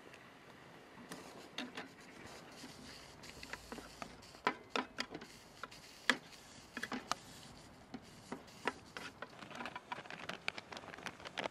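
Wooden chopsticks clicking and scraping against an aluminium mess tin while stirring pork slices, in irregular sharp taps. Near the end, a denser rustle and crackle as fried tofu is tipped in from a plastic bag.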